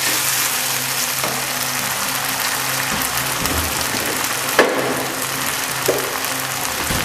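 Sauce-coated chopped onions sizzling in a nonstick frying pan over a high gas flame, with two sharp knocks of the wooden spatula against the pan a little past halfway.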